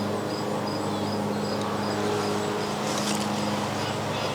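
Outdoor backyard ambience: a steady low hum with a short high chirp repeating evenly about three times a second, and a brief rustle about three seconds in.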